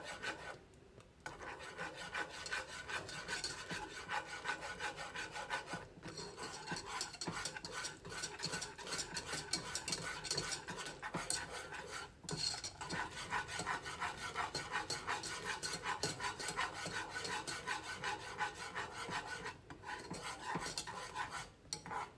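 Wire whisk scraping rapidly and continuously against the bottom and sides of a small metal saucepan, beating a thick, creamy Alfredo cheese sauce. There are a few brief pauses in the whisking.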